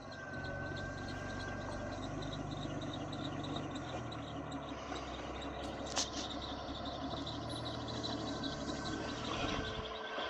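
Jeep Cherokee XJ engine running at low revs while crawling, its pitch shifting a little, with a brief high squeal near the start and a single sharp knock about six seconds in.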